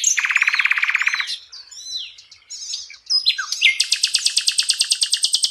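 A sikatan londo flycatcher singing a rapid, varied song of chattering notes and fast trills. A quieter pause of scattered notes comes midway, followed by a long, very rapid trill near the end.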